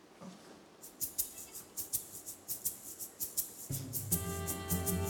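Small egg shakers worn on a violinist's fingers, shaken in a steady rhythm of about four shakes a second. About three and a half seconds in, bowed violins join with sustained chords.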